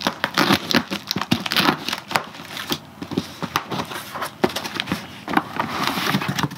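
Taped cardboard parcel being opened by hand: packing tape slit and torn off, cardboard flaps and inner boxes crinkling and rustling in a quick, irregular string of crackles.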